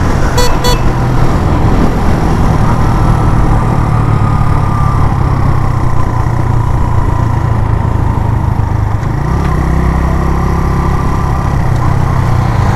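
Suzuki GS 150 SE motorcycle's single-cylinder four-stroke engine running under way, with wind rush over the handlebar-mounted camera; the engine note drops lower about nine seconds in.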